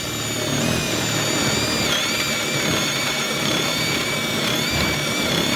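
DeWalt cordless drill driving a hole saw into wood: a steady motor whine over the rasp of the saw teeth cutting, the pitch sagging briefly about two seconds in as the saw bites.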